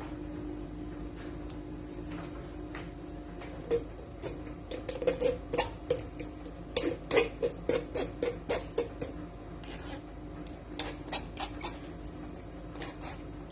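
Fork and wooden spatula scraping and tapping on a metal mesh strainer as boiled squash is pressed through it: a quick run of clicks and clinks from about four seconds in, and a few more near the end, over a steady low hum.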